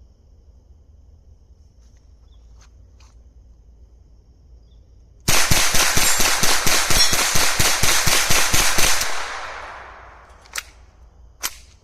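A 3D-printed Galileo 1022 pistol on Ruger 10/22 .22 LR semi-auto internals fired in a fast string of about twenty shots, roughly six a second, lasting nearly four seconds. Two sharp clicks follow near the end.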